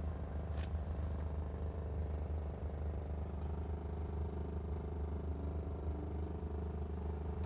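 2012 VW Golf GTI with its turbocharged four-cylinder engine idling, making a steady low hum and drone. It carries a vibrating noise from the rear right of the car that the owner is trying to trace: a noise that has been growing louder and that he has ruled out as coming from the windows.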